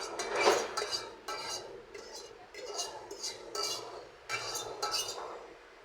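Metal utensil clinking and scraping against cookware in irregular short strokes, as in stirring, with a louder scrape about half a second in.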